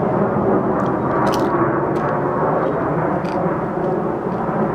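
An airplane passing overhead: a loud, steady drone.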